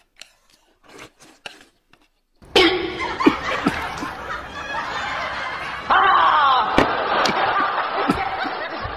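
A few faint clicks, then loud laughter that breaks out about two and a half seconds in and carries on.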